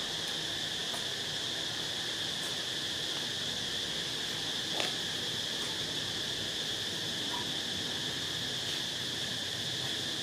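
Steady high-pitched insect chorus droning without a break, with one faint click about five seconds in.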